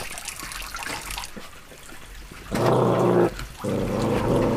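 A puppy growling twice over its food while eating meat scraps, two low, steady growls of about a second each, starting about halfway through.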